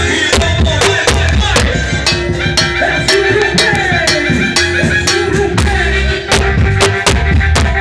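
A band playing music: drum kit and percussion keep a steady beat over a strong bass, with a melody line above.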